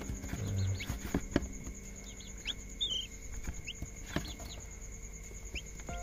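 Young chick peeping: a string of short, thin chirps about every half second, with a few light taps and rustles as it pecks at food offered on tweezers among wood shavings.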